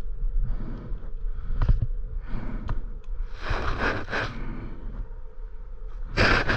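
Rubber ODI handlebar grips being twisted and pushed onto the handlebar: irregular rubbing and scraping with a few short clicks, louder in a burst about midway and again near the end.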